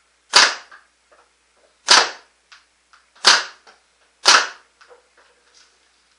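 Proto Matrix Rail paintball marker fitted with a 360 QEV, firing four shots about a second to a second and a half apart. Each is a sharp pop with a short ringing tail, and fainter clicks come between the shots.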